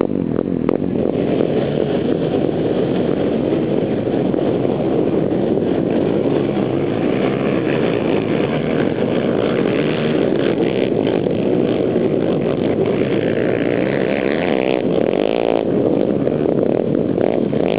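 A pack of racing ATVs (quads) revving and accelerating away together, a dense mass of engines; about thirteen seconds in one passes closer, its pitch rising and falling.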